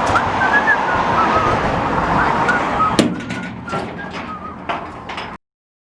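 Steady outdoor background rush with a few faint short chirps and a sharp click about three seconds in, cutting off abruptly to silence near the end.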